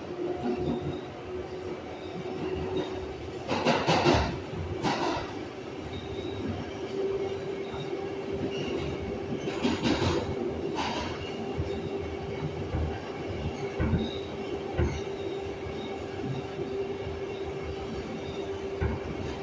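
R142A subway train running: a steady hum over rumbling rail noise, with a few louder clatters about four and ten seconds in.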